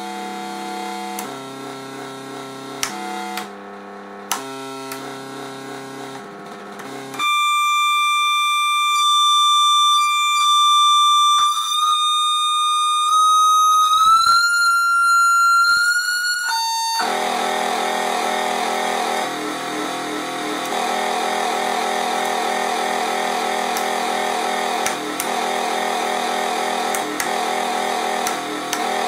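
SN76477 sound-chip noise machine (FusoElektronique NDR-113) playing electronic tones as its knobs and switches are turned. First a low buzzing tone jumps between pitches. About seven seconds in it changes to a louder, high, steady tone that creeps up in pitch in small steps, then at about seventeen seconds it cuts to a dense, rough buzzing noise with low tones shifting underneath.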